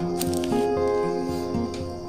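Instrumental background music, steady notes changing every half second or so, with a brief click about a quarter second in.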